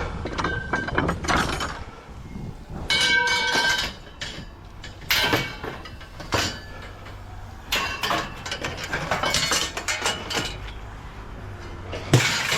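Scrap metal parts clanking and clattering as they are handled and sorted, with one piece ringing for nearly a second a few seconds in.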